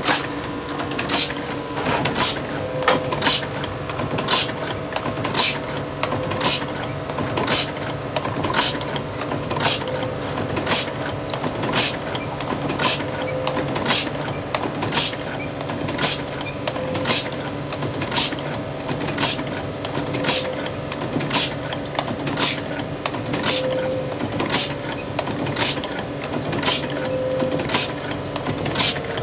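Automatic gyoza-forming machine running: a steady mechanical hum with regular clacks about twice a second as its plungers press out dumplings, and a tone in the hum that swells every three or four seconds.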